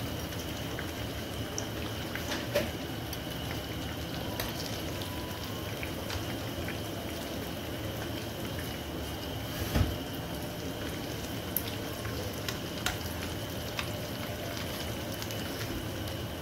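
Breadcrumbed cutlets shallow-frying in hot oil and ghee: a steady sizzle with small crackling pops. A few knocks of steel tongs against the pan, the loudest about ten seconds in.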